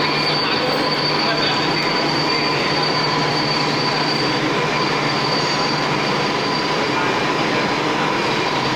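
Impeller shaft being machined on a machine tool: a continuous cutting and machine noise with a steady high whine over a low hum, even throughout.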